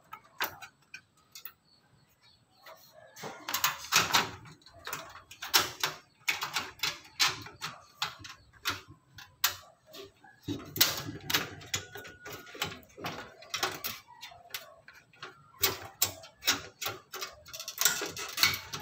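Irregular clicks, knocks and rattles of hardware being handled inside a metal desktop computer case, with cables and parts at the motherboard being worked by hand. The clicking starts about three seconds in and comes in quick clusters.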